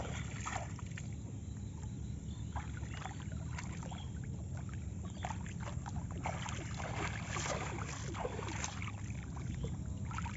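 Shallow paddy-field water splashing and sloshing in irregular short bursts as a hand sweeps and scoops through it, over a steady low rumble.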